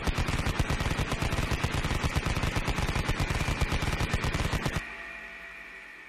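Vulcan rotary machine gun firing one long, continuous, very rapid burst that cuts off abruptly about five seconds in, leaving a fading whine.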